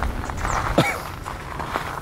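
Footsteps crunching on gravel as someone walks. About halfway through there is a short sliding squeak.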